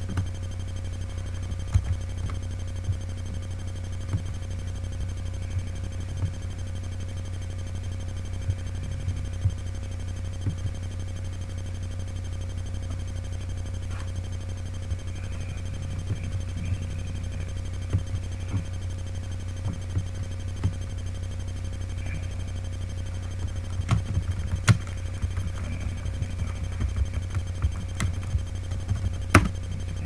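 Steady low hum with a faint higher steady tone, and scattered small clicks and knocks that come more often near the end.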